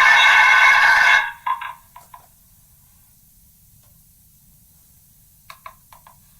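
Megaphone speaker playing back a recording of a recording of a spoken phrase, worn down by repeated re-recording into a loud, harsh, ringing smear that cuts off suddenly about a second in. After a few short choppy fragments and a quiet gap, brief clipped bursts of the degraded voice come from the megaphone again near the end.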